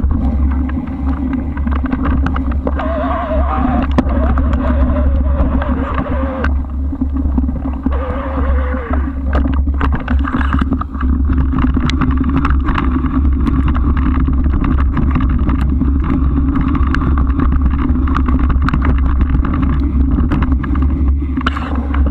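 Steady wind rumble and rolling noise on a camera mounted on a moving bike, with many small clicks and knocks from the ride.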